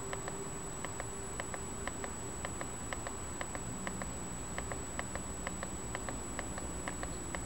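Rapid, repeated clicks of a mini wireless keyboard's arrow key pressed again and again, about three a second, over a faint steady high-pitched whine.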